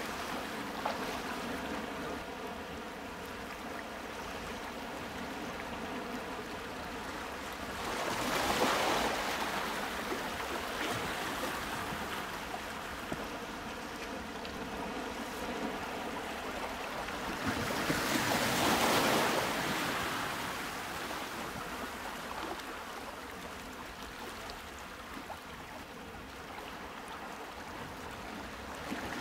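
Sea waves washing in over a steady hiss of water, swelling twice, about ten seconds apart, with faint steady tones underneath.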